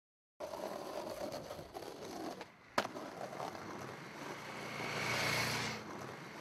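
Outdoor traffic noise from a road, with a vehicle passing that swells to its loudest about five seconds in and then fades; a single sharp click near three seconds in.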